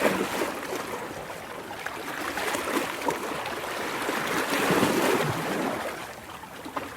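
Ocean waves washing in: a rushing, hissing surge that swells and eases, strongest right at the start and again about five seconds in.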